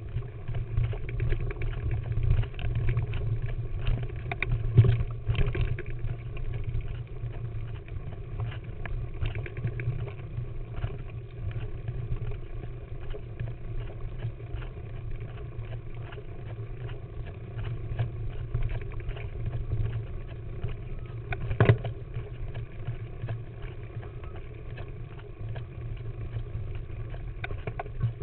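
A mountain bike riding over a dirt and rocky singletrack, heard from a camera mounted on the bike: a continuous low rumble of tyres and frame rattle with scattered sharp knocks from bumps. The hardest knocks come about five seconds in and just past twenty seconds.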